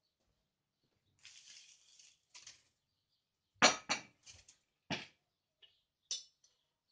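A board laid down on a plastic table and a small folding metal stove set onto it: a scraping rustle, then a handful of sharp knocks and clacks, the loudest about three and a half seconds in.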